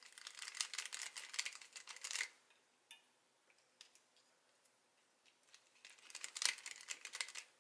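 A bit screwdriver with a T10 Torx security bit clicking rapidly as it undoes the retainer-plate screws on a Hope Duo brake lever's master cylinder, in two bursts of dense clicks with a few single ticks between.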